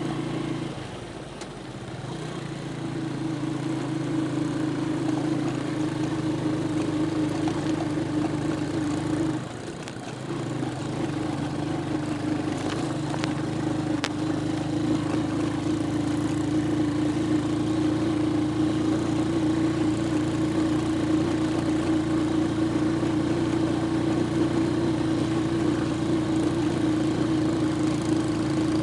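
A vehicle engine running steadily under way, its note dropping briefly twice: about a second in and again about ten seconds in.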